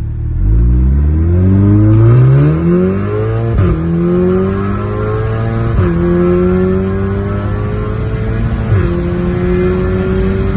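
VW Golf Mk7 R's turbocharged 2.0-litre four-cylinder, Stage 3 tuned with a bigger hybrid turbo and a straight-piped Milltek valved exhaust, accelerating hard as heard from inside the cabin. The engine note climbs steadily, drops sharply at three upshifts a few seconds apart, and climbs again after each.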